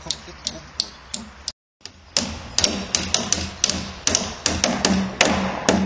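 Hammers nailing roofing sheets onto a wooden roof frame: irregular sharp strikes, a few a second, breaking off briefly about one and a half seconds in.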